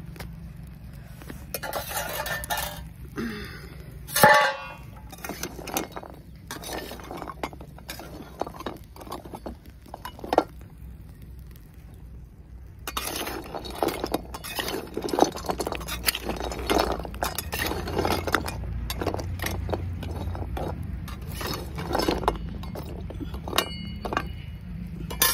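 A metal spatula scraping and clinking in an iron kadhai as chunks of multani mitti clay are turned over a wood fire to roast them, with the hard pieces clattering against the pan. One loud metal clang about four seconds in, and a short pause in the scraping about halfway through.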